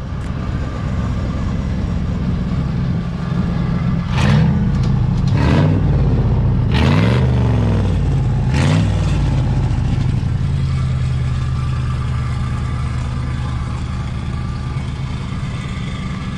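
A car engine running steadily, its pitch wavering a little in the middle. Four sharp snaps, about four to nine seconds in, from large flags cracking in the wind.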